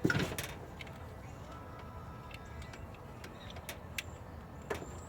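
Metal tools and engine parts clinking and clattering during timing-chain work: one loud clatter at the start, then scattered light clicks and a sharper clink near the end, over a steady low hum.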